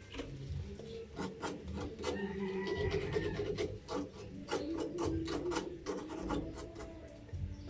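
A quick, irregular series of scraping or rubbing strokes, roughly three a second.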